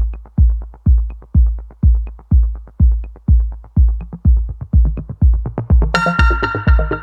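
Electronic dance music: a heavy kick drum on every beat, about two a second, with a bright synthesizer chord coming in about six seconds in.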